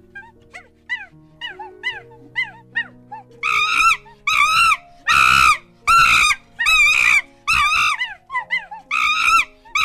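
A monkey calling: a string of short, quick calls, then from about a third of the way in a run of about eight loud, longer calls, each rising and falling in pitch. Background music plays underneath.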